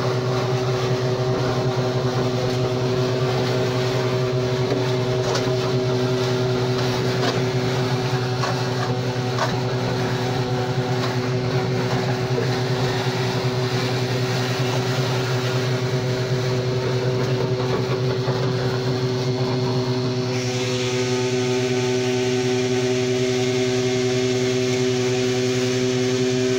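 An engine running steadily at a constant speed, a low, even hum.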